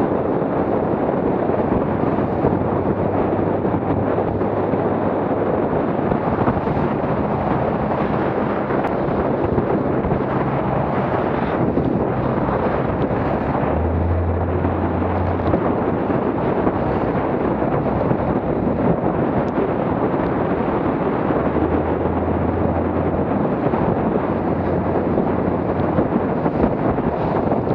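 Wind buffeting the microphone on a small motorboat running at about 8 to 11 knots through chop, with spray off the hull. A low engine hum underneath swells twice.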